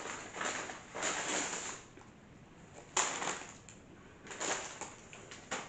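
Paper takeaway bags and wrappers rustling and crinkling in several short bursts as food is unpacked, with a sharper crinkle about three seconds in.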